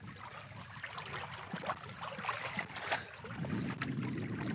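River water trickling and lapping around a floating raft, with many small splashes and drips. A low rumbling noise comes up about three seconds in.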